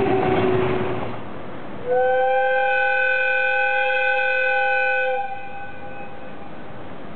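Loud rumble of a locomotive-hauled train rushing past close by for about the first second, then the whistle of a JR Kyushu ED76 electric locomotive: one steady blast of about three seconds, the departure signal, fading over about a second after it stops.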